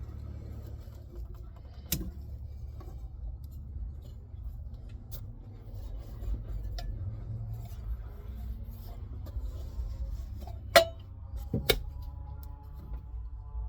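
Hands and tools working on a car's fuel pump module: scattered sharp clicks and knocks over a steady low rumble. The loudest click comes a little past three-quarters of the way through, with another about a second later.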